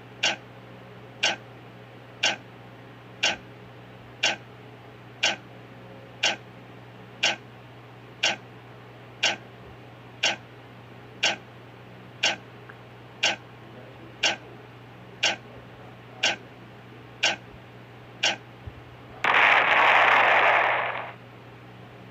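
Countdown clock ticking once a second, sharp even ticks over a faint steady hum. Near the end the ticks stop and a loud, harsh burst of noise sounds for about two seconds as the countdown runs out.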